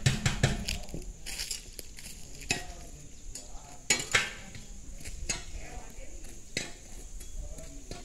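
Irregular sharp clinks and knocks of hard objects striking, loudest at the very start and twice around four seconds in, over a faint steady high hiss.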